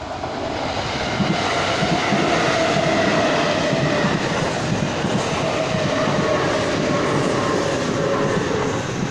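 Kintetsu red-and-cream electric commuter train passing close by, its wheels clattering over the rail joints. The running noise builds over the first second and then holds steady.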